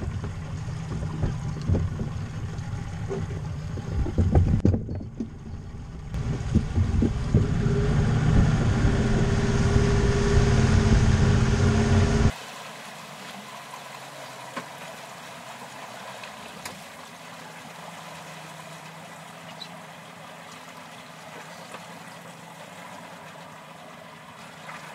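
Boat engine running under way, with water rushing and splashing along the hull and some knocks. About halfway through the sound cuts abruptly to a much quieter, steady low engine hum.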